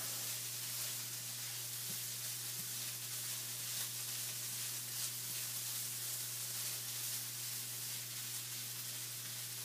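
Chicken and vegetables sizzling faintly in a hot skillet as a spatula stirs them, the burner just switched off; a steady low hum sits underneath.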